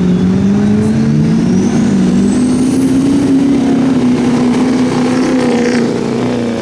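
Two diesel pickup trucks launching in a drag race and accelerating hard, their engines running at high revs with the pitch climbing gradually. A thin high whistle rises steeply in pitch over the first few seconds, and the sound eases off slightly near the end.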